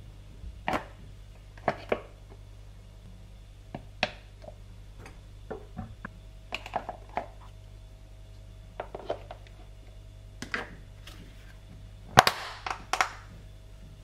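Clear plastic clip-lock food container handled on a kitchen counter: scattered light plastic clicks and knocks as salad is packed in, then a quick cluster of sharp snaps near the end as the lid is put on and its locking clips pressed shut. A low steady hum runs underneath.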